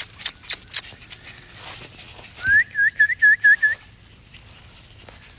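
A person whistling to call puppies: one rising note, then a quick run of six short chirping whistles. Four quick high clicks come just before it.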